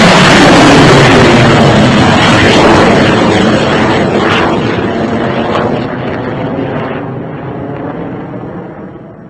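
Rocket engine launch sound effect: a dense rushing noise, loud at first, that fades away steadily over the last few seconds.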